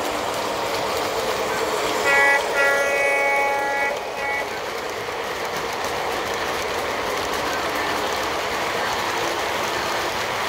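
Model train running past on its track with a steady rolling rumble of wheels on rail, its horn sounding twice about two seconds in, a short blast then a longer one.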